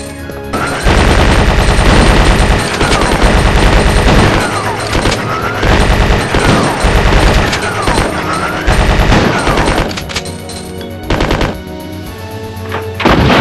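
Sound effect of a long burst of rapid automatic gunfire starting about a second in and lasting about nine seconds, with a police siren wailing up and down over it. A few single shots follow near the end.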